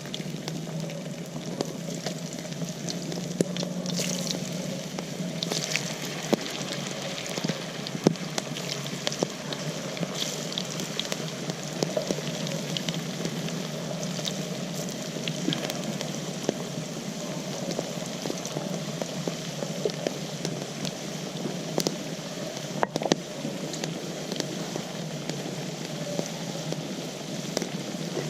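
Potatoes frying in hot oil: a steady sizzle with scattered sharp pops.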